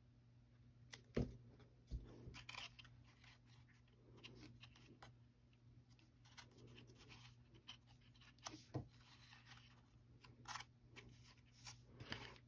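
Faint paper-crafting handling sounds: scattered light clicks, taps and paper rustles as hands work cardstock pieces, the sharpest clicks about one and two seconds in, over a low steady hum.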